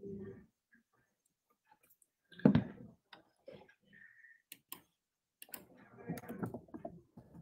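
Scattered faint clicks and taps, with one louder knock about two and a half seconds in.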